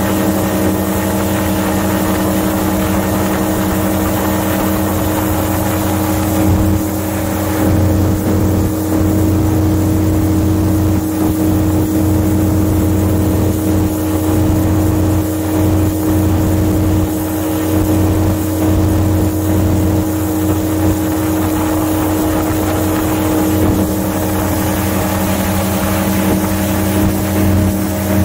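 Airboat's engine and large air propeller running at cruising speed as the boat skims across the marsh. It is a loud, steady drone of even pitch that swells and dips slightly a few times.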